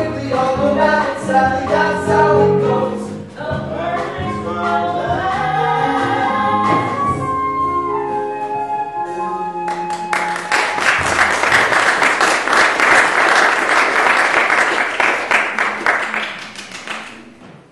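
A show tune sung live with instrumental accompaniment, ending on a held note about eight seconds in. About ten seconds in, audience applause breaks out and continues for roughly seven seconds, dying away near the end.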